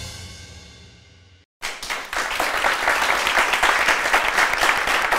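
Jingle music fading out, then a moment of silence, then a studio audience applauding steadily.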